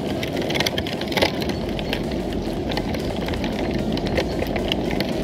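Meat grinder running, forcing minced flesh out through its plate: a steady mechanical rumble with many small crackling clicks.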